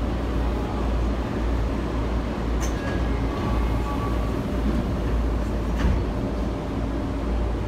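Tokyu 8500-series commuter train running through a subway tunnel: a steady low rumble of wheels and traction gear on the rails, with two sharp clicks, about 2.5 and 6 seconds in.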